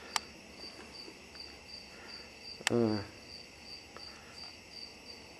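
A cricket chirping steadily, about two and a half high-pitched chirps a second. There is a sharp click just after the start, and about halfway another click followed by a brief voice sound.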